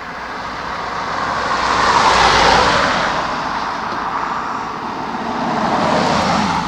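Road traffic passing a cyclist: one vehicle's tyre and engine noise swells to a peak about two and a half seconds in and fades away, and another approaches near the end.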